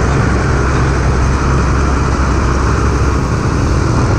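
Mitsubishi Fuso FM truck's diesel engine running close by, a loud steady low drone.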